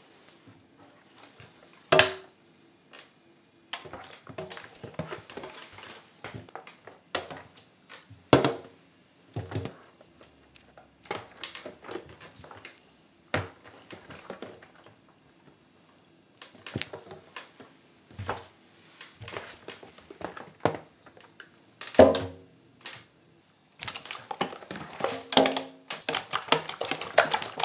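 Gooey water slime squelching and splashing as it is trodden and squeezed in a stainless steel tray, with irregular wet squishing and a few loud sharp knocks, and a quick run of clicks near the end.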